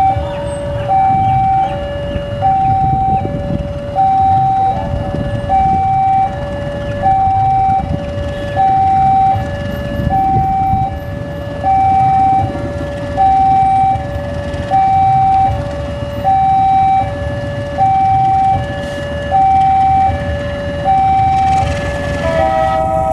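Two-tone electronic warning signal alternating evenly between a high and a low note, each held about three-quarters of a second, like a railway level-crossing alarm. Under it runs the low rumble of a diesel locomotive pulling a passenger train out.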